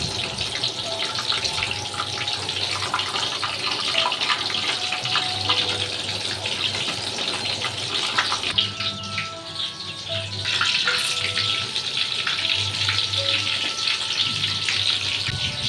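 Hot oil sizzling in a wok as stuffed bitter gourd rings and tofu pieces deep-fry, a dense hiss full of fine crackles. The sizzle eases for about two seconds past the middle, then comes back.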